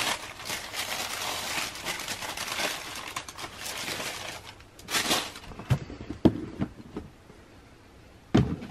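Shoe-box tissue paper rustling and crinkling as it is folded back and the paper stuffing is pulled out of a new sneaker, followed by a few knocks and a thump as the shoe is handled and lifted from the box.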